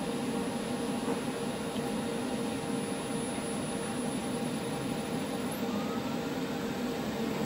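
Alternator test bench's electric drive motor turning a belt-driven Ford Denso hairpin alternator, spinning it up from rest for the regulator's turn-on speed check: a steady mechanical whir with a faint rising whine near the end.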